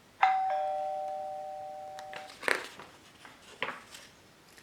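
Two-note 'ding-dong' doorbell chime: a higher note, then a lower one, both ringing on and fading away over about two seconds.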